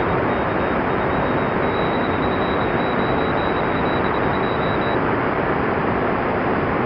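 Shortwave receiver static and hiss in single-sideband mode on the 20 m amateur band, with a faint, high-pitched Morse code signal keying on and off until about five seconds in.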